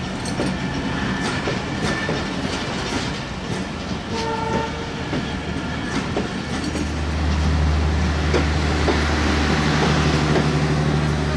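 Intercity passenger coaches rolling past at speed, their wheels clicking over the rail joints. A brief high tone sounds about four seconds in. From about seven seconds a louder, steady low hum joins.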